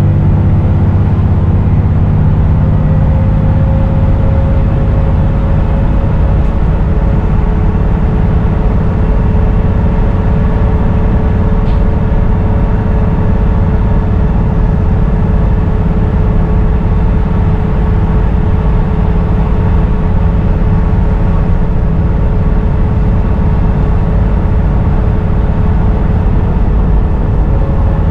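Dennis Trident 2 / Enviro 400 double-decker bus under way, its diesel engine running as a steady low rumble with steady tones over it, among them a slight turbo whistle.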